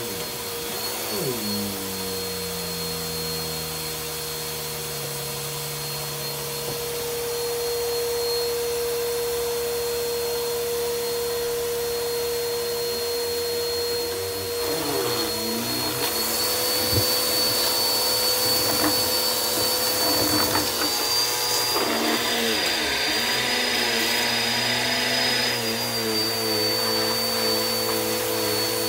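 Bissell PowerForce bagless upright vacuum cleaner running steadily with a constant motor whine. In the second half it gets a little louder, with scattered clicks and rattles as debris is sucked up off the carpet.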